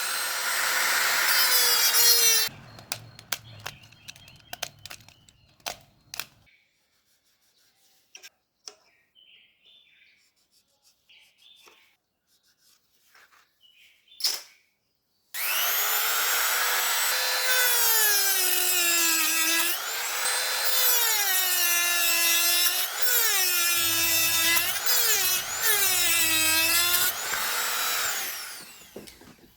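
Small electric drill whining at high speed, its pitch sagging and recovering several times as it bites into the work. It runs briefly at the start, stops, and after light clicks and taps starts again about halfway in and runs for about thirteen seconds.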